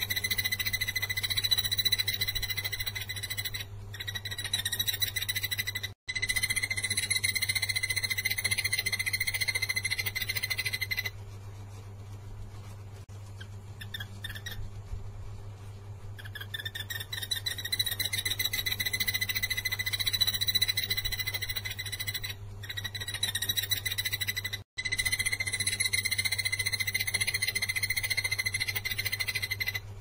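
A takur tenggeret barbet calling: long runs of fast, even notes repeated on one pitch, stopping for about five seconds in the middle and breaking off briefly a few times. A low steady hum lies underneath.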